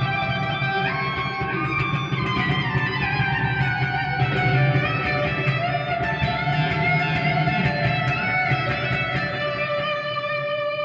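Electric guitar played through a Marshall MG100HDFX amp on its overdrive channel with heavy delay and reverb: sustained, bent lead notes and a descending run, the echoes carrying each note on.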